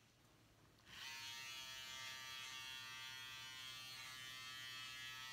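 Electric razor buzzing steadily while held against the face to shave; it starts about a second in, after dead silence.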